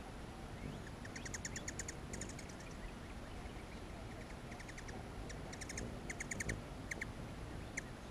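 Hummingbird chattering: several short bursts of rapid high chips, from about a second in until near the end, over a steady outdoor hiss.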